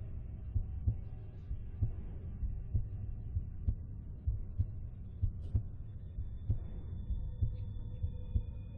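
Heartbeat sound effect: a steady, slow run of deep thumps, about two a second, used as a suspense beat. In the second half a faint high held tone and a low drone come in beneath it.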